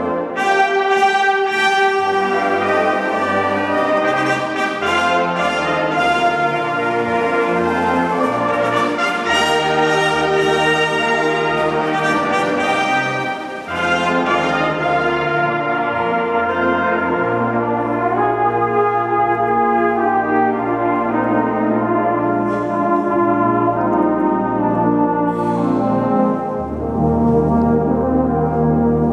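Fanfare band of brass instruments and saxophones playing a piece: full held chords over long bass notes, with a brief drop in the sound about 14 seconds in.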